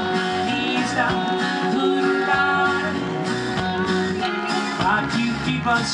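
Band music with guitar.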